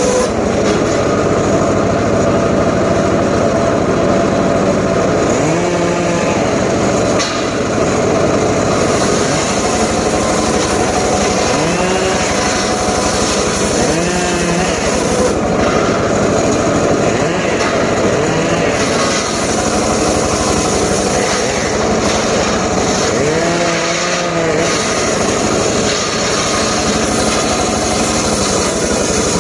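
Engine-driven saw running continuously while cutting jowar (Siamese cassia) wood. Its engine note rises and sags again every few seconds as the blade takes each cut.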